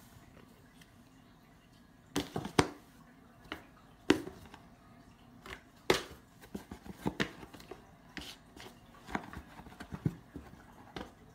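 A cat batting and pawing at a cardboard shoebox, giving irregular sharp taps and knocks on the cardboard that start about two seconds in, after near silence.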